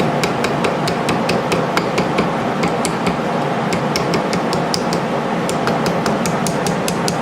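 A small hammer tapping metal on a pocket knife in quick, even light strokes, about five a second, working a part into place; it is going in.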